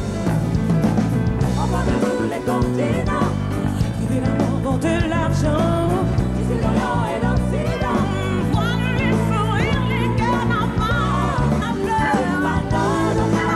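Live band music: a woman sings a wavering lead melody over drum kit, bass and keyboards.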